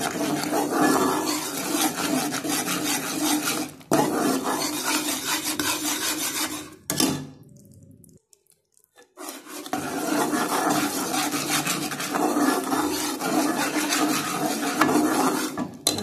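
Metal spoon scraping and clinking against a steel kadhai while stirring thick jaggery syrup for chikki. There is a brief break about four seconds in and a near-silent pause from about seven to nine seconds before the stirring resumes.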